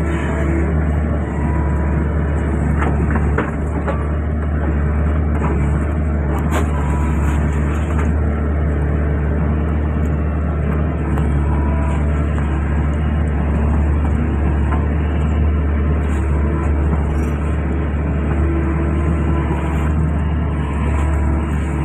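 Excavator diesel engine running steadily, with a few short knocks about three and six seconds in.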